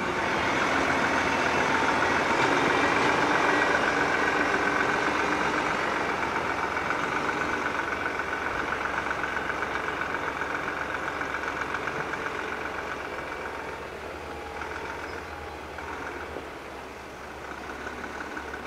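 Heavy diesel earthmoving machinery running: a steady engine drone with a fast, even pulsing. It is loudest a few seconds in and then slowly grows quieter.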